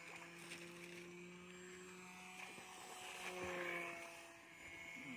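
Radio-controlled Seamaster seaplane's motor and propeller buzzing steadily in flight, louder with a slight dip in pitch as it passes about three and a half seconds in.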